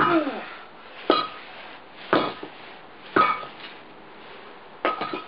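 Concrete cinder block slammed down onto a golf ball on brick paving, five sharp strikes about a second apart with a long gap before the last, each with a brief ring. The ball holds and does not break.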